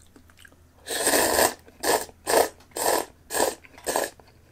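A person slurping instant ramen noodles with soup: one long slurp about a second in, then five short slurps in quick succession.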